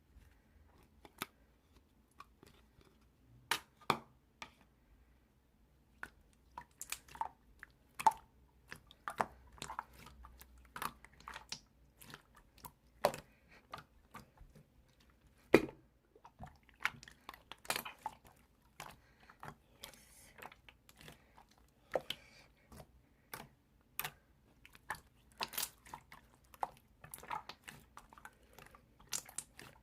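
Blue slime being worked by hand, giving irregular sticky pops, clicks and squishes.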